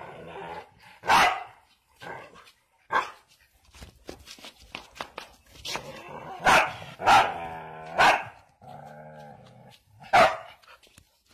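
Dog barking at a chicken, in sharp single barks, about six in all, with a longer steady call about nine seconds in.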